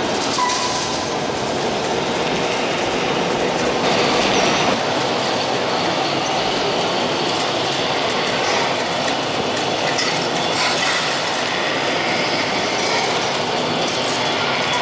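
Radio-controlled model trucks and construction machines running: a steady mechanical whirring and clattering of small motors and gears.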